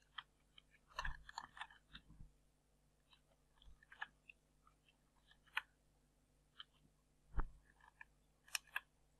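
Computer keyboard keystrokes, faint and uneven: small clusters of clicks with pauses between them, one heavier knock late on.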